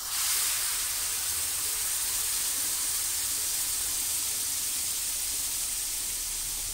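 Hot sugar water poured into ghee-roasted wheat flour in a hot frying pan, hissing and sizzling hard as it boils up into froth. The hiss starts suddenly and slowly dies down.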